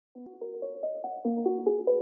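Background music: a keyboard-like instrument playing quick, evenly spaced notes, fading in over the first second.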